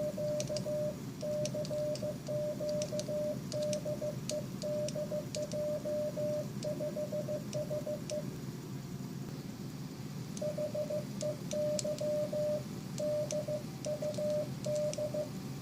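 Morse code sidetone beeping in a mix of short dits and longer dahs, keyed by a homemade glove key whose snap-button contacts on the fingers close the circuit. The beeping stops for about two seconds midway, then resumes. Light clicks sound along with the keying.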